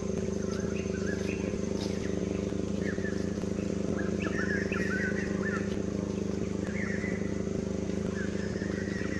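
A motor engine idling steadily throughout, with short high chirping calls over it several times, clustered around the middle and near the end.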